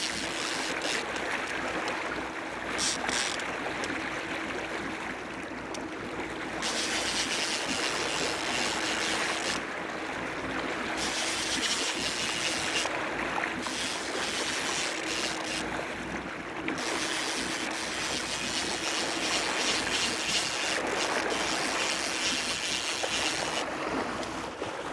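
Boat under way at trolling speed: a steady rush of wind and water with a faint steady engine hum underneath.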